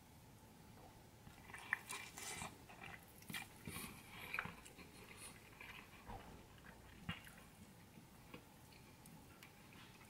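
A person chewing a mouthful of seasoned air-fried salmon: faint mouth clicks and crackles, most of them in the first half.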